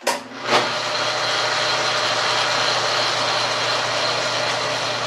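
Logan metal lathe switched on with a sharp click and a second knock about half a second later, then its electric motor and drive running steadily with a low hum, set to its slowest speed.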